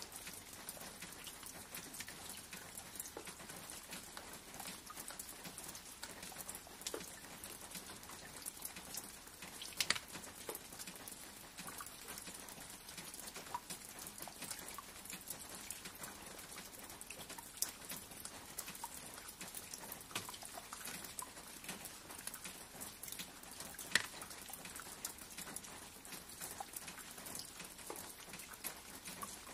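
Steady rain ambience: an even hiss scattered with many small drop clicks, with a couple of louder drops about a third of the way in and again later.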